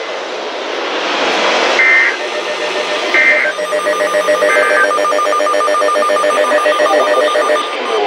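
EAS/SAME digital header: three short bursts of warbling two-tone data over radio static, about a second and a half apart, encoding the start of a severe thunderstorm warning. From about three and a half seconds in, an alert receiver's rapidly pulsed, buzzy alarm tone sounds and keeps going.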